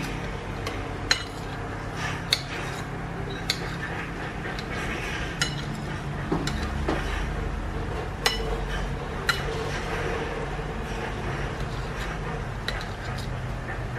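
Kitchen knife clicking and scraping against a ceramic plate while slicing raw squid, with sharp clicks every second or so over a steady low hum.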